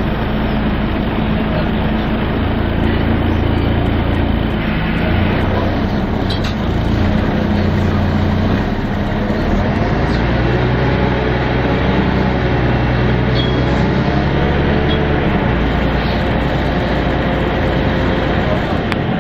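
Inside a Volvo B10BLE single-deck bus on the move: its rear-mounted horizontal six-cylinder diesel running under way, with road noise and light interior rattles. The engine note shifts a few times as the bus changes speed.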